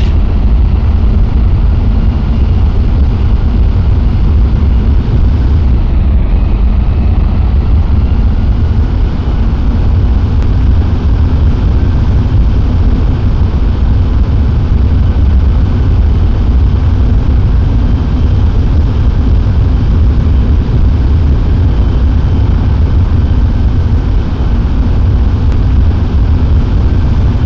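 A loud, steady low rumble with a hiss above it, unchanging throughout.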